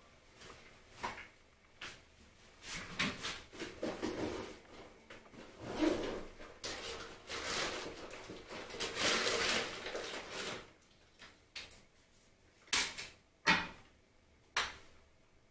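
Irregular clicks, knocks and rustles in a small room, like objects being handled, opened and set down. There is a busier stretch of rustling in the middle and a few sharper knocks near the end.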